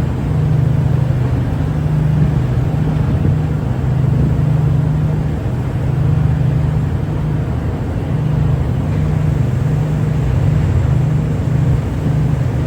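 A ship's engines drone steadily at sea, a low hum that swells and eases every second or two over a wash of noise.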